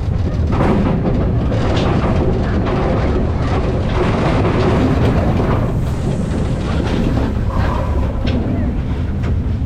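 Mine-train roller coaster running along its track: a loud, steady rumble of steel wheels on rail, with constant rattling and clatter from the cars.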